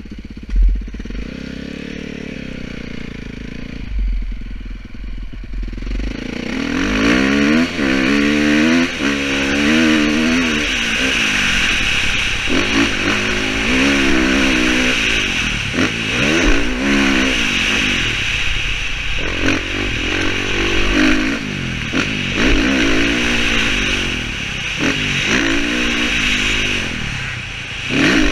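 Motocross dirt bike engine, running low and steady at first, then from about six seconds in repeatedly climbing in pitch and dropping back as the bike accelerates and shifts along a dirt track. Wind rushes over the helmet-mounted microphone.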